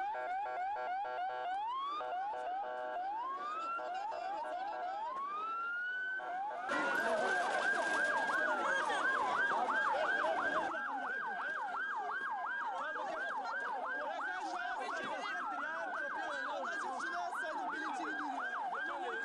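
Several emergency sirens sounding at once, from ambulances. At first slow rising sweeps; from about seven seconds in a fast yelp, with a slower wail crossing over it. A louder rush of noise joins the yelp for about four seconds after it starts.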